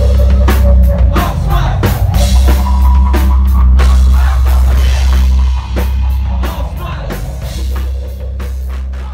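Live rock music: a drum kit hit hard over a deep, sustained bass line. The drumming thins out after about six seconds and the music starts to fade near the end.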